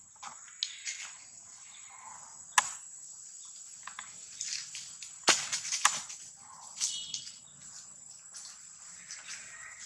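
Dry leaf litter crackling and rustling in scattered sharp snaps as young macaques scuffle on it, the loudest snaps about two and a half and five seconds in, over a steady high insect drone.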